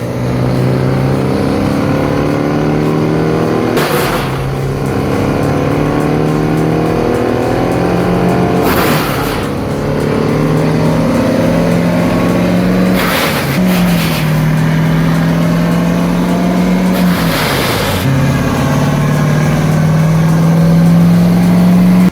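Morbark M18R wood chipper's 165-horsepower engine running under load as it chews through a large oak log. Its pitch sags and recovers as the log bites. Sharp loud cracks of splitting wood come about every four to five seconds.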